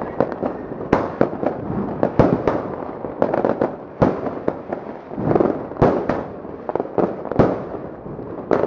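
A Lesli Pamela consumer firework firing a rapid series of aerial shots: sharp bangs about one or two a second, with a rough hiss between them as the bursts open overhead.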